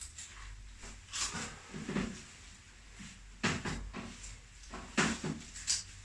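A handful of short knocks and rustles of the patient and practitioner shifting against each other and the treatment table during a chiropractic adjustment.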